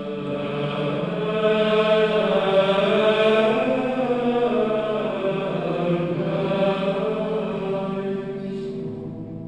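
Background music: a slow sung chant with long held vocal notes, dying down near the end.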